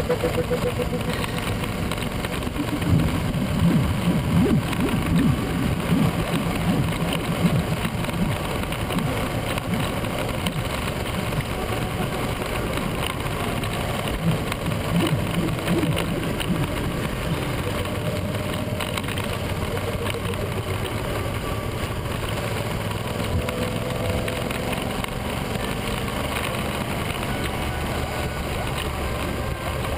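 Motorcycle engine running at road speed with wind rushing over the on-bike microphone; the engine pulls harder for a few seconds near the start, then settles into a steady cruise.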